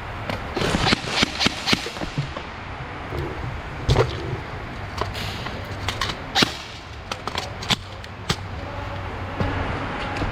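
Scattered airsoft gunfire: irregular sharp pops, a quick run of about five shots in the first two seconds, then single shots and a few more later on.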